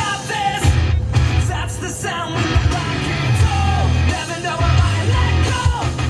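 Loud rock music from a car stereo heard inside the car's cabin, with heavy booming bass and a voice singing and yelling along.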